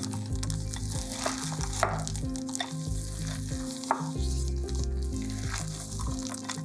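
Silicone spatula folding chocolate chips into thick cookie dough in a glass bowl: a sticky, squelching crackle of dough and chips being turned over, with a few sharper clicks of chips.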